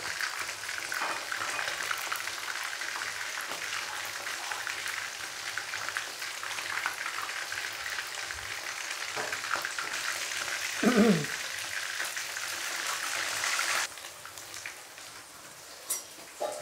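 Pieces of tongkol fish deep-frying in hot oil in a wok: a steady crackling sizzle, with the fish near done and starting to dry out. About eleven seconds in, a brief tone falling in pitch cuts through, and about fourteen seconds in the sizzle drops suddenly quieter.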